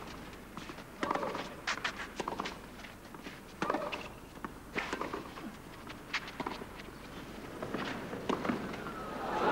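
Tennis rally on a clay court: racquets striking the ball back and forth, a sharp hit roughly every second. Near the end the crowd noise swells as the point finishes.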